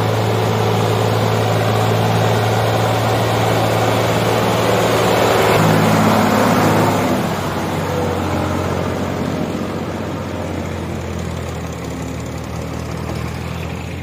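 Ford 3610 tractor's three-cylinder diesel engine running steadily under load as it pulls a loaded sugarcane trolley through mud. It grows louder as the tractor passes close at about six seconds, then fades as it moves away.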